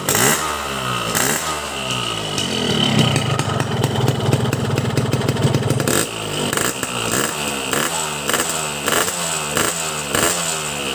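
Cold two-stroke motorcycle engine revved through a Boban C33 aftermarket muffler: a few rising and falling revs at first, a steadier stretch in the middle, then quick throttle blips about twice a second through the last five seconds.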